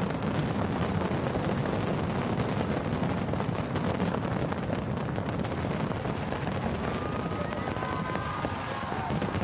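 Large fireworks display: a dense, unbroken barrage of bangs and crackles from many shells bursting at once. A few faint whistling tones come in near the end.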